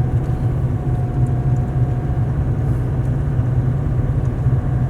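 Vehicle being driven slowly along a dirt road, heard from inside the cabin: a steady low engine and tyre rumble.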